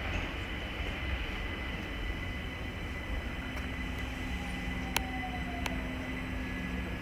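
London Overground Class 378 electric train at the station: a steady low rumble with a thin steady whine. A lower hum comes in about three seconds in and a second one a second later. Near the middle comes a short falling whine, with two sharp clicks less than a second apart.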